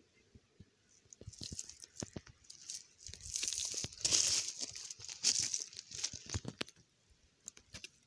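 Close, dry rustling and crackling with scattered sharp clicks. It thickens into a dense crinkly rustle about three seconds in and fades out about seven seconds in.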